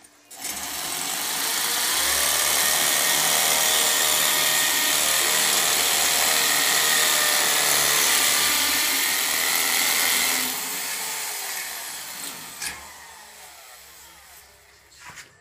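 Electric drill running under load as it bores into the metal door frame for about ten seconds. The trigger is then released and the motor winds down with a falling whine, followed by a couple of short clicks.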